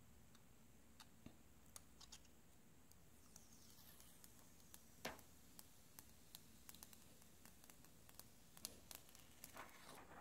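Near silence with scattered faint clicks and crackles as the thin plastic protective film on a replacement iPad glass digitizer is pried up with a flathead screwdriver and peeled off. One click about halfway through is a little louder.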